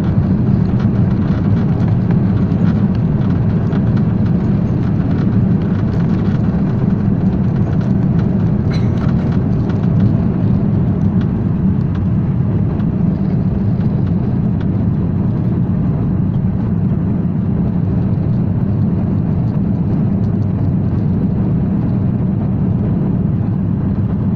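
Cabin noise of a jet airliner taking off: the engines at takeoff thrust make a loud, steady, deep noise with a hiss above it, through the takeoff roll and into the climb. The hiss thins a little after the wheels leave the runway, a little past halfway.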